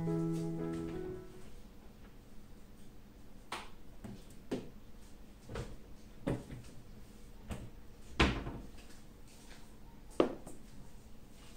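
Piano music ending in the first second, then kitchen handling sounds: a string of knocks and clunks as a refrigerator door is opened and shut and a plastic food container is set down on a countertop, the sharpest two about eight and ten seconds in.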